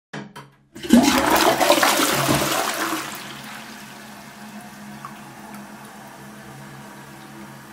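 Toilet flushing: a few short clicks, then about a second in a loud rush of water for about two seconds, which settles into a quieter steady running of water.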